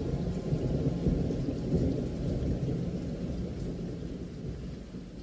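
Rolling thunder with rain: a deep, continuous rumble over a soft hiss, loudest in the first two seconds, then slowly fading out.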